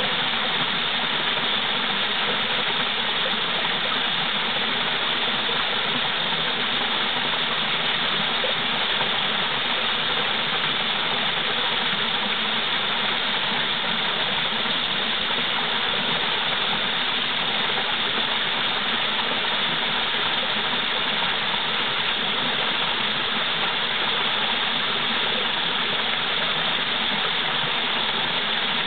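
Small mountain waterfall: a steady, even rush of falling water that does not change.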